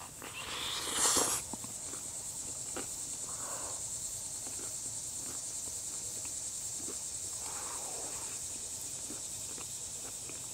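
Steady high-pitched buzzing chorus of summer insects, pulsing rapidly, with a brief loud rustle about a second in.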